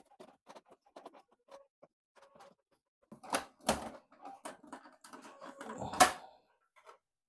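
Plastic clicks, taps and rattles from the back cover of an Epson L1300 inkjet printer being unscrewed and pulled off. A couple of louder knocks come about three and a half seconds in, and the loudest knock about six seconds in.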